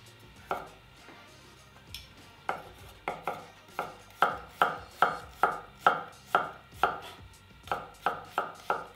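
A large kitchen knife slicing a garlic clove on a wooden cutting board. A few separate knocks come first, then a steady chopping rhythm of about two to three strikes a second from about halfway in, with a brief pause before the end.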